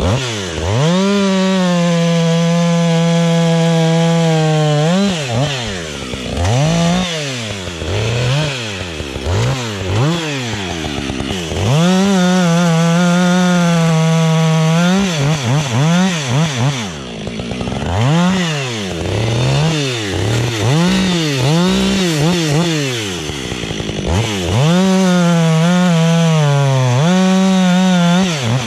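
Husqvarna 555 two-stroke chainsaw bucking a felled dead conifer. It holds three long runs at a steady high pitch at full throttle through the cuts, with the throttle revved up and down repeatedly between them.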